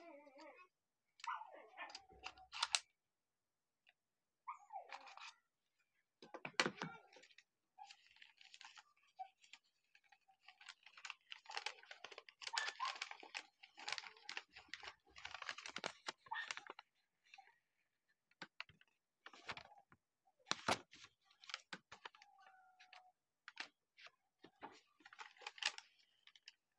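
Paper instruction sheet rustling and crinkling in irregular bursts as it is unfolded and handled, with a few sharp clicks and knocks.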